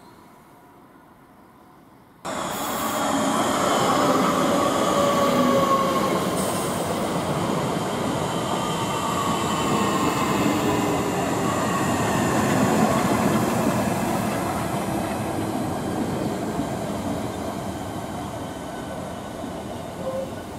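Southeastern Class 465 Networker electric train running along the platform: a sustained rumble of wheels on rail with faint whining tones that slowly fall in pitch. It starts abruptly about two seconds in and eases off gradually toward the end as the train moves away.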